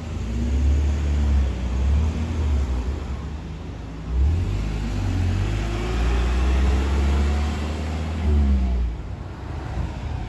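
Road vehicles driving past, a loud low engine rumble whose pitch rises as they accelerate and falls again near the end.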